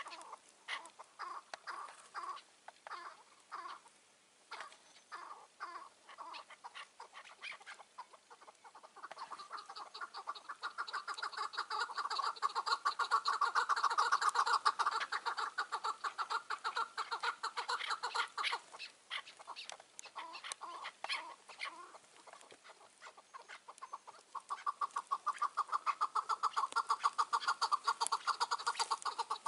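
Chukar partridge calling. Scattered single clucks give way, about nine seconds in, to a fast run of chuck notes that builds in loudness for about ten seconds and then dies away. Clucks follow, and a second fast run starts near the end.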